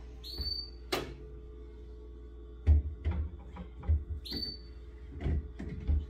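Refrigerator shelves and drawers being fitted back into the fridge: two short rising squeaks of plastic sliding in, a sharp click about a second in, and a run of knocks and thuds in the second half.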